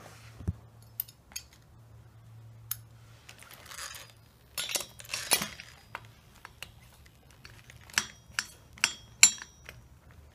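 Small metal clicks and clinks, some with a short ring, as the glow plug is screwed back into a nitro RC buggy engine with a small metal tool. The clicks come in scattered groups, densest in the middle and near the end.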